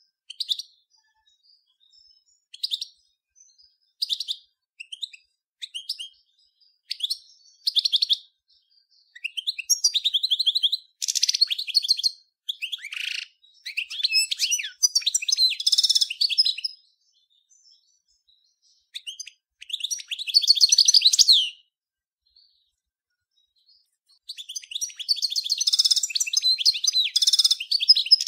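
European goldfinch of the large 'Major' race singing: for the first several seconds short single notes about every one and a half seconds, then longer phrases of rapid trilled notes, a pause of about two seconds, and unbroken song again near the end.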